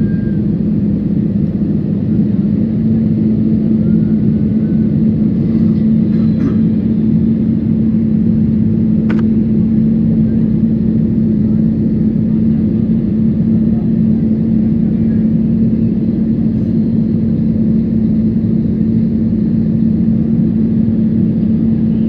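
Steady drone of an airliner's engines and airflow heard from inside the passenger cabin during the descent, with a constant low hum. A single short click comes about nine seconds in.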